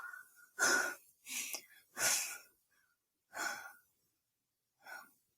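A woman breathing hard in dismay: about five separate audible breaths, gasps and exhales with short pauses between them.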